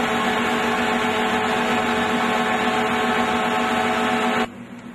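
Industrial process machinery running with a steady, even hum: a constant low tone with overtones over a broad mechanical noise. It cuts off abruptly near the end.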